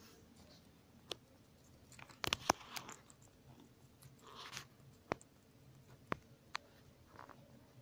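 Guinea pigs chewing lettuce: scattered crisp crunches and clicks, with a quick cluster about two seconds in.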